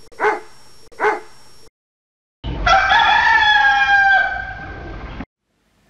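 A dog barks twice, short barks about a second apart, then after a brief pause a rooster crows once, a long cock-a-doodle-doo of about three seconds.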